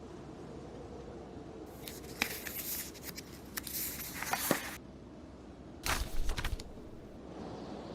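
Book pages being turned: three dry paper rustles, about two seconds in, near the middle and about six seconds in, with a few crisp snaps. Underneath is a steady low storm-wind bed.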